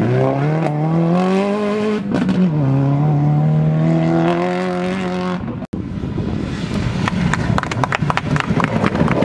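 Subaru Impreza rally car's turbocharged flat-four engine pulling away hard on gravel: the note climbs, drops at a gear change about two seconds in, then climbs again at high revs. About halfway through the sound cuts, and a rougher, noisier stretch with rapid crackles follows as another rally car approaches.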